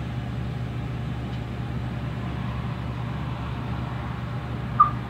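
Steady low hum of an idling vehicle engine, with one short high-pitched squeak near the end.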